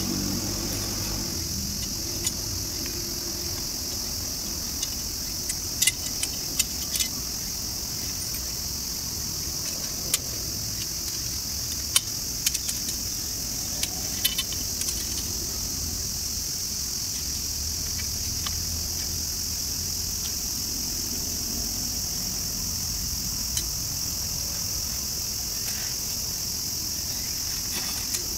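Scattered light metal clinks and clicks as a folding camp grill's grate, fire plate and legs are taken apart and packed, a few in quick succession, over a steady high insect chorus.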